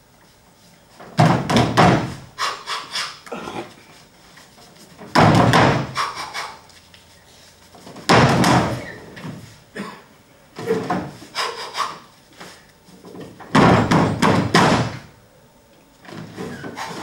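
Clusters of knocks and thumps on a wooden stage floor, from a performer stamping and banging about on and around his chair, coming in bursts every few seconds, the loudest about one, five, eight and fourteen seconds in.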